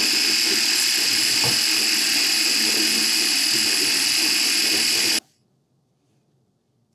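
KitchenAid 3.5-cup mini food chopper running with a steady high whine, blending olive oil dripping in through its lid into an emulsified vinaigrette. The sound cuts off suddenly about five seconds in.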